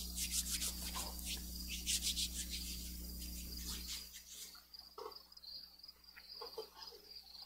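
Crickets chirping steadily outdoors, with hands rubbing together in hand sanitizer during the first couple of seconds. A low electrical hum cuts out about four seconds in.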